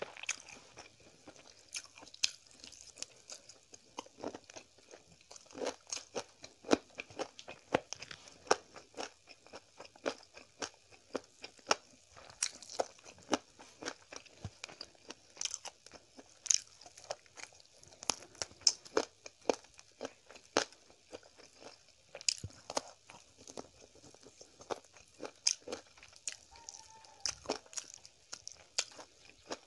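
A person chewing and biting food close to the microphone, with many sharp, irregular crunchy clicks of eating by mouth.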